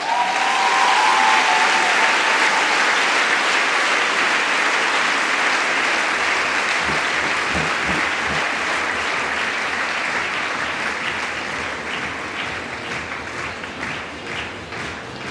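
Large audience applauding, breaking out loudly just as the music ends on a fading held note, then slowly thinning into scattered separate claps near the end.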